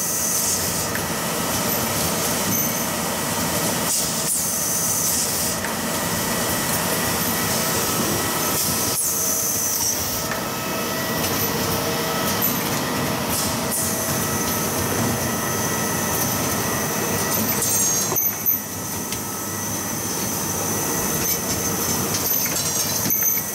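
Automated engine-valve inspection machines running: steady machinery noise with short bursts of air hiss every few seconds and occasional sharp clicks from their pneumatic actuators.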